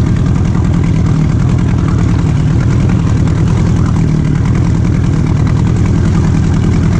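Outboard motor running steadily at low trolling speed, pushing an inflatable boat, heard close from aboard.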